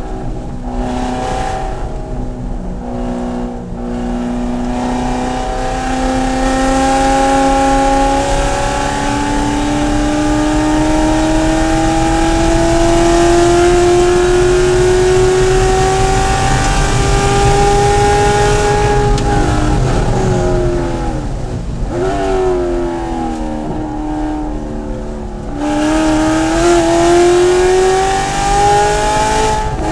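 Corvette C7 race car's 6.2-litre V8 at full throttle, its pitch climbing steadily through a long pull. About two-thirds of the way through it lifts and downshifts with quick throttle blips for braking, then accelerates hard again near the end.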